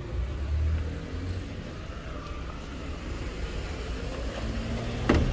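Low rumble of street traffic, with a sharp knock near the end.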